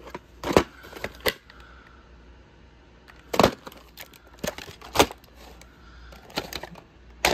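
Plastic clamshell VHS case being handled and opened and the cassette taken out: a string of sharp plastic clicks and knocks, the loudest about three and a half and five seconds in.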